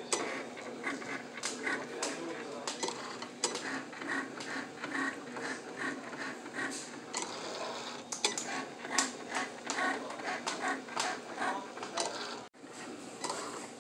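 Cricut Explore Air 2 cutting machine drawing with a fine-point pen on cardstock: its motors whirring and the carriage and pen clicking and rattling in quick, irregular bursts as it moves. The sound cuts out briefly near the end.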